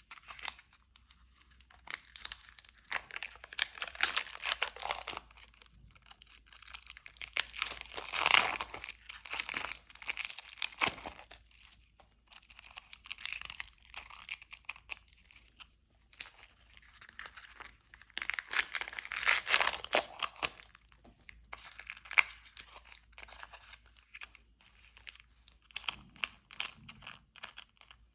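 Candy wrappers being crinkled and torn open by hand, in bursts of crackling a few seconds apart, the loudest about a third of the way in.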